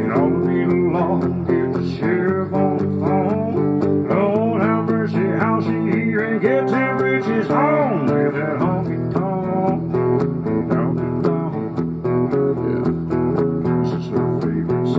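Guitar playing an instrumental break in a country song: bending single notes over steady held chords.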